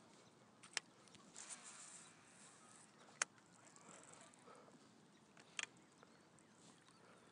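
Near silence: a faint outdoor hush, broken by a few short, sharp clicks spread through it.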